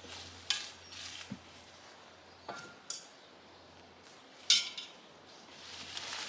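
Broad bean plants being pulled up and handled: rustling foliage with a few short, sharp snaps and clicks. The loudest comes about four and a half seconds in.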